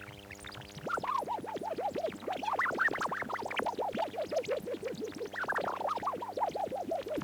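Laser microphone's photodiode output as the mirror reflecting its beam is tapped: a rapid run of short chirps, several a second, each falling in pitch, over a steady electrical hum.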